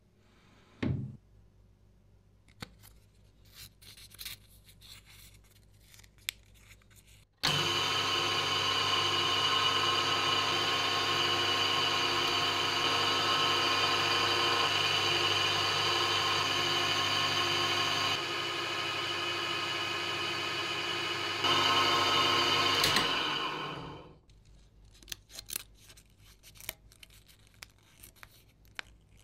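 A small metal lathe starts abruptly and runs steadily with a motor and gear whine for about sixteen seconds while winding enamelled copper wire onto a doorbell electromagnet bobbin. It drops slightly in level partway through, comes up again, then winds down to a stop. Faint clicks of parts being handled come before and after.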